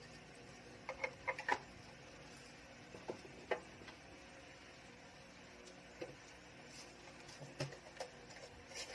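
Scattered light clicks and taps of kitchen utensils and seasoning containers while seasonings are spooned onto fish for a marinade, with a short cluster of clicks about a second in and single taps later on.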